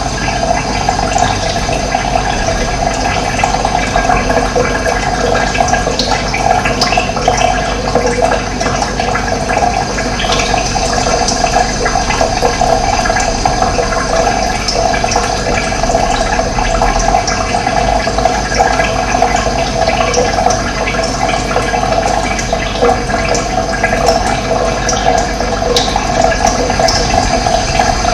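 Running water: a steady, continuous rushing flow.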